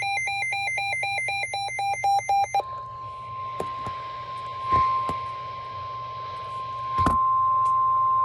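Weather radio sounding an emergency alert. A buzzy, rapidly warbling burst of digital data tones (the SAME alert header) plays for about two and a half seconds, then a steady 1050 Hz warning tone follows over faint static. A few sharp clicks are heard, and the tone gets louder about seven seconds in.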